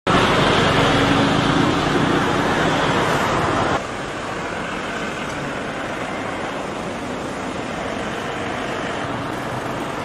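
Road traffic noise from a congested street of cars. It drops suddenly about four seconds in to a quieter, steady background.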